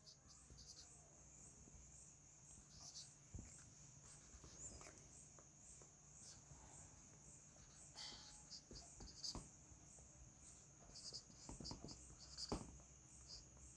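Near silence: faint taps and short strokes of a marker on a whiteboard as points are marked and labelled on a line, over a faint steady high-pitched whine.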